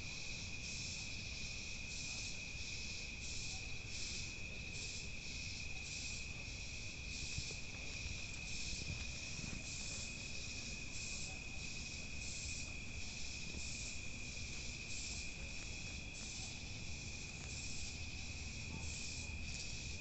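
Night insect chorus: crickets trilling in one steady high tone, with a higher rasping chorus pulsing a few times a second above it, over a low background rumble.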